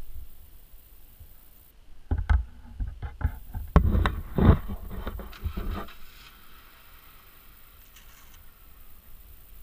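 Close handling noise: a cluster of irregular rustles, scrapes and knocks lasting about four seconds, starting about two seconds in, as a rider pulls on and adjusts gloves and gear next to a helmet-mounted camera's microphone. A faint low rumble of wind on the microphone lies under it.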